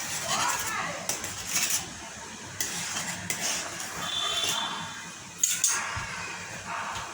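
Kitchen utensils clinking and knocking against a pot or pan while noodles are cooked, with a few sharp knocks about five and a half seconds in, over a steady hiss.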